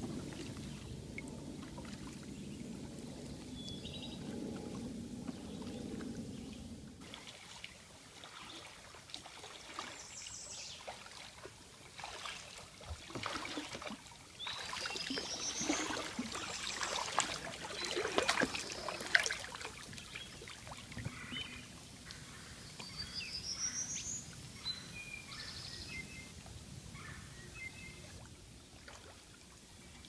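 Kayak paddle strokes splashing and dripping in slow river water, loudest and most irregular in the middle, with a few high rising chirps around it. A low steady noise runs under the first seven seconds and then stops.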